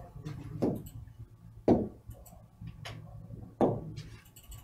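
Footsteps on a hard floor: a handful of separate knocks about a second apart, the loudest two about a second and a half in and near the end, over a faint low room hum.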